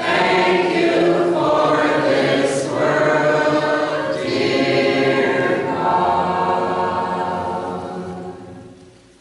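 Doukhobor congregation singing a hymn together a cappella, many voices, ending on a long held final note that fades out near the end.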